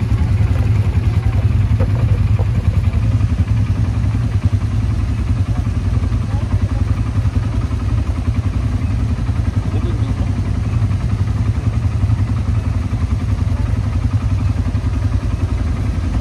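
ATV quad bike engine running steadily with a fast, even pulse, the low drone of a ride underway.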